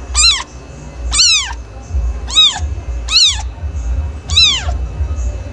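A domestic cat meowing five times, each a short high-pitched meow that rises and then falls in pitch, about a second apart, over a low steady hum.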